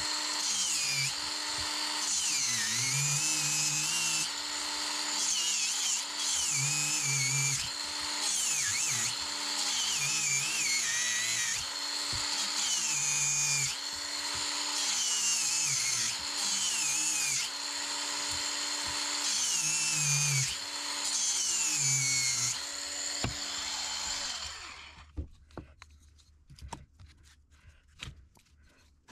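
Small high-speed power tool running on wood, its motor pitch dipping and recovering every second or two as it is pressed into the work. It stops about 25 seconds in, and a few faint clicks follow.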